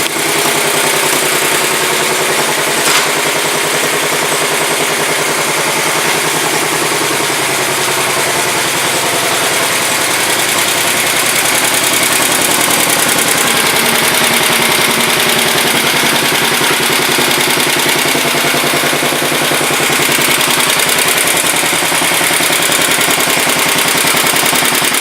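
1967 Sears Suburban 10 garden tractor's single-cylinder engine running steadily after its first start following repairs, getting a little louder around halfway through. A brief click about three seconds in.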